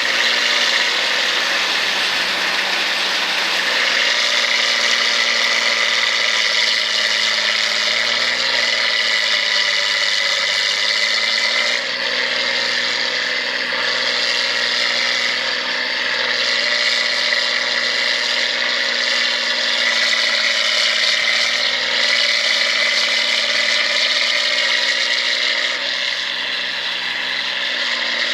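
Rice combine harvester running steadily, its engine and threshing machinery making a continuous whirring drone with several high whining tones.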